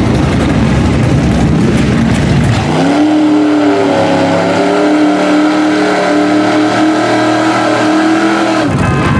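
Lifted mud truck's engine revving hard as it plows through deep mud. First there is a rough, loud roar; then, from about three seconds in, a high held engine note rises a little and holds steady until it drops away near the end.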